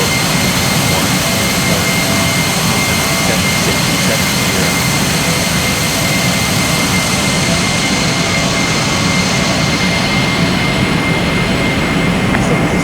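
Jet airliner's engines at takeoff power, a loud steady rumble with a high whine; the high-pitched part fades away over the second half as the aircraft moves off.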